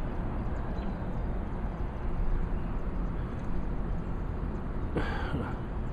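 Steady outdoor background noise with a low rumble, and one short high call about five seconds in.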